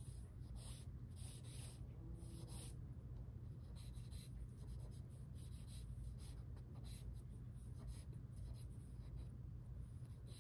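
Pencil scratching on drawing paper in a string of short, uneven strokes as lines are sketched in, over a steady low room hum.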